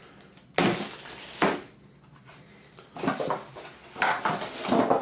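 Packaging and an accessory case being handled while unboxing a robot vacuum: two sharp knocks under a second apart near the start, then irregular clattering and rustling in the second half.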